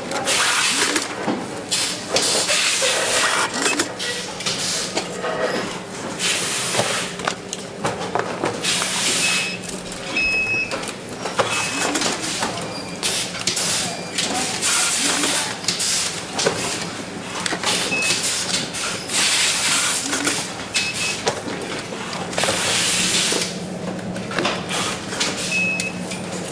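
Power bank assembly line noise: repeated bursts of hissing a second or so long, short high electronic beeps, some in pairs, and a steady low hum underneath.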